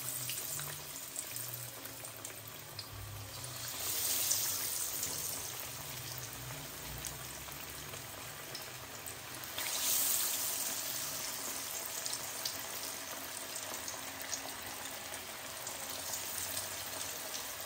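Battered rohu fish pieces deep-frying in hot cooking oil in a kadai: a steady crackling sizzle that swells louder twice, about four and ten seconds in.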